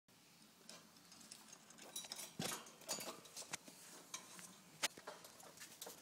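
Faint scattered clicks, taps and rustling as an apple is handled and put into a wire parrot cage, with a few sharper taps a little after 2 s, around 3 s and just before 5 s.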